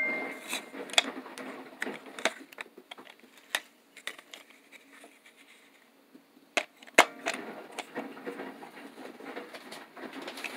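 Irregular plastic clicks and knocks from a musical carousel toy being handled, its last music-box note fading at the start, over a faint mechanical whirr. One sharper knock comes about two-thirds of the way through.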